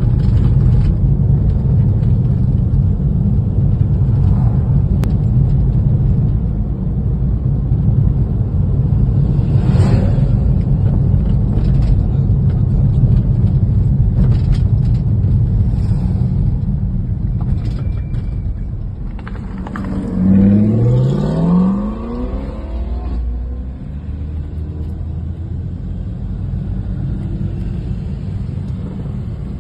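Road noise heard inside a moving car: a steady low rumble of tyres and engine. About two-thirds of the way through, an engine speeds up, its pitch rising twice in quick succession.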